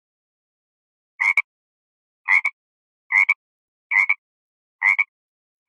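A farm animal's short, harsh call, repeated five times about a second apart.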